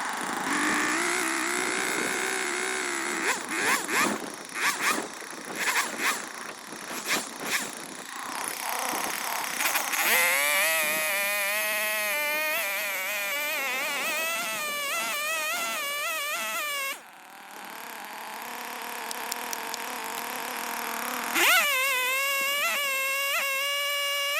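Two-stroke chainsaw running, surging unevenly at first, then at high revs with a wavering pitch. About two-thirds of the way through it drops away sharply, then revs straight back up to a steady high whine a few seconds before the end.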